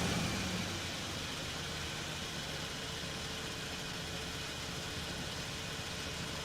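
Ford Mustang engine falling back from a rev in the first second, then idling steadily with a low rumble.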